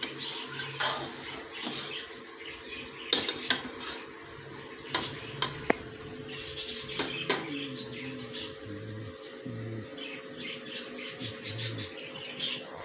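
Metal ladle scraping and clinking against the inside of a metal pressure cooker as black chickpeas are stirred and roasted in ghee. The strokes come irregularly, the loudest about three seconds in.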